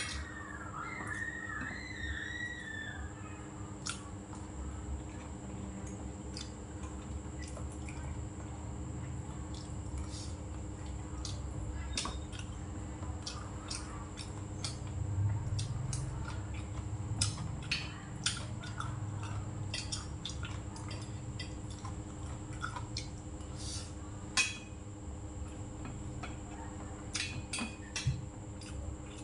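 Metal spoon and chopsticks clicking and scraping against ceramic bowls as rice is stirred and food picked up: scattered light clicks, irregular, a few at a time. A steady faint hum and high whine run underneath.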